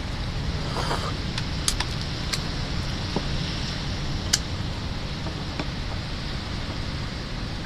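A few sharp clicks and taps from spiny sea urchin shells being handled and broken open for eating, over a steady low rumble.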